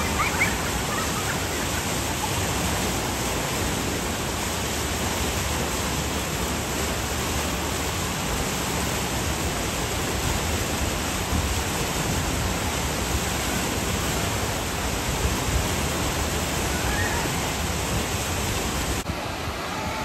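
Steady rush of churning water running through a river rapids ride's channel.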